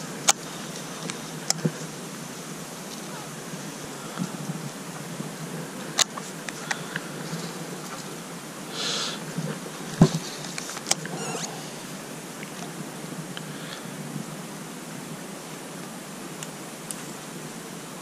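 Scattered sharp clicks and a short rustle from a baitcasting rod and reel being worked among dry reeds, over a steady background hiss.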